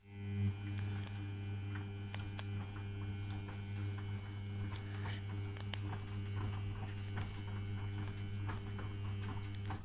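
Samsung front-loading washing machine's drum motor turning the drum during the second rinse: a steady low hum that starts suddenly and stops just before the end, with scattered small clicks from the wet load tumbling.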